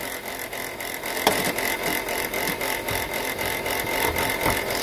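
Chrysler Pacifica engine running with a steady high whine and fast, even ticking from the belt-driven accessories, with one sharper click about a second and a quarter in. The noise comes from the alternator, whose bearing the mechanic judges to be shot and coming apart.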